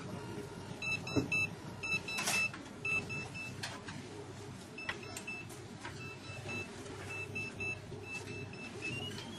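CSL handheld RFID reader in Geiger-counter search mode, giving short high beeps in irregular runs of a few per second as it is swept along the shelves to find a tagged file, ending in a short rising tone near the end. A few handling clicks are heard under the beeps.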